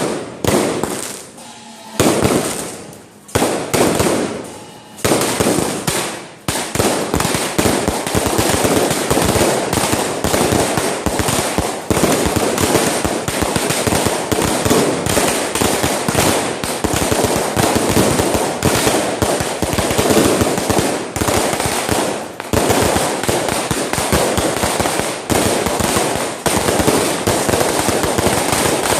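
Fireworks going off: a few separate loud bangs, each dying away, over the first six seconds, then from about six seconds in a dense, unbroken barrage of bangs and crackles.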